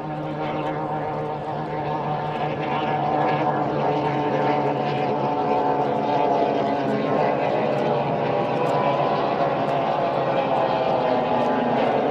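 Formula 1 tunnel-hull race powerboat's outboard engine running flat out on a pass, growing louder over the first few seconds as the boat closes in, then holding steady.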